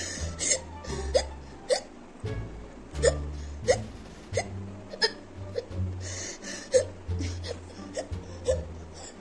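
A woman hiccuping over and over, about a dozen short, sharp hiccups half a second to a second apart, brought on by eating hot red chilli. Background music with a low bass runs underneath.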